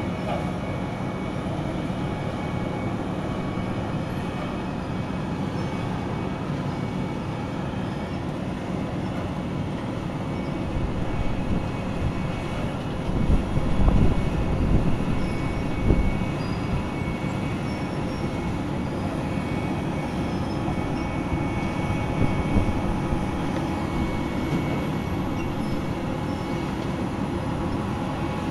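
Wirtgen asphalt cold milling machine running and grinding up road pavement: a steady, loud diesel-and-cutter-drum drone with a thin whine over it. The deep rumble swells a few times about halfway through.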